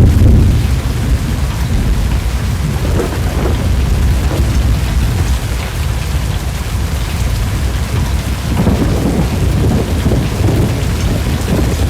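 Severe thunderstorm: steady heavy rain with deep rumbling thunder, loudest right at the start and building again after about eight seconds.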